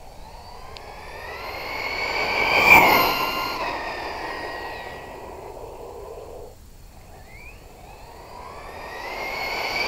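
A JLB J3 Speed RC car's electric motor and drivetrain whining on a 3S battery as the car speeds past. The whine climbs and grows loud, peaks about three seconds in, then drops in pitch and fades as the car goes away. Near the end it builds again as the car comes back.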